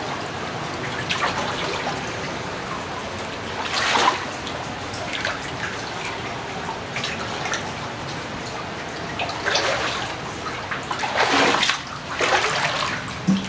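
Water dripping and trickling inside a flooded mine tunnel, with louder splashing of steps through the shallow water at about four seconds and again near the end.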